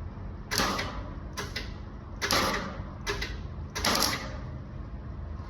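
Welder laying short tack welds on thin sheet-metal body panel: five brief bursts of arc crackle spaced under a second apart, the welder on its lowest setting to keep from burning through.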